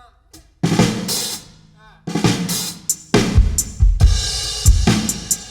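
Drum kit sounds fired from a drum trigger, played as separate hits about half a second to a second apart: deep bass-drum thuds, several with a cymbal crash ringing on behind them, plus snare and lighter cymbal strikes.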